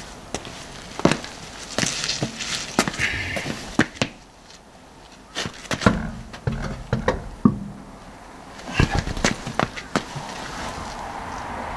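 Irregular series of sharp knocks and clatters, with a short lull about four seconds in.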